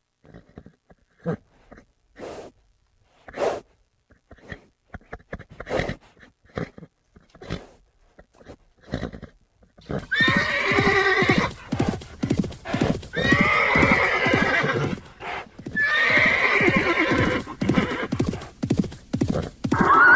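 Horse hooves clip-clopping in an irregular, sparse run for about the first half. Then the horse whinnies loudly three times, each neigh lasting a second or two, with hoofbeats going on underneath. Another whinny begins at the end.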